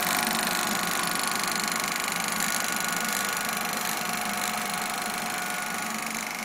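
Old Marín portable film projector running: its film-advance mechanism makes a steady, rapid mechanical clatter over a whirr, growing slightly fainter toward the end.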